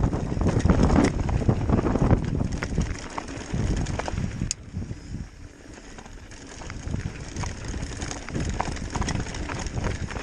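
Mountain bike rolling down a rocky gravel trail: tyres rumbling over loose stones with frequent clicks and rattles from the bike over the bumps, and wind buffeting the camera microphone. It goes quieter for a couple of seconds midway, then picks up again.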